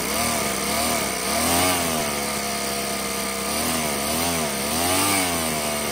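Miniature two-cylinder four-stroke nitro model engine running at high revs. The revs swing up and down repeatedly as the carburetor is worked by hand.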